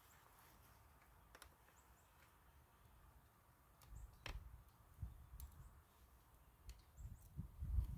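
Faint, scattered clicks of screws and plastic chainsaw housing parts being handled during disassembly, with a low rumble coming in from about four seconds in.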